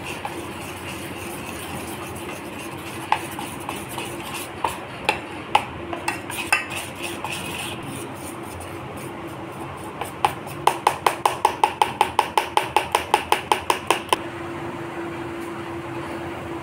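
Steel spoon stirring and beating khaman dhokla batter in a stainless steel bowl, with Eno fruit salt just added, clinking against the bowl's sides. A few scattered clinks come first; then, about ten seconds in, a fast, even run of about six clinks a second lasts some three seconds and stops abruptly.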